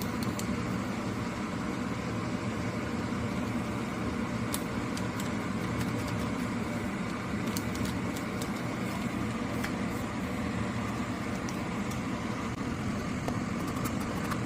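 A steady low rumbling hum with a few light clicks and taps scattered through it.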